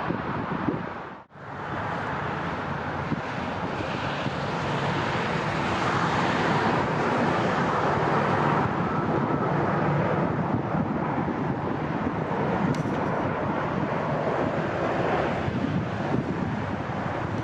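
Jet airliner engine noise with wind buffeting the microphone. It cuts out briefly about a second in, then swells a few seconds later and holds steady.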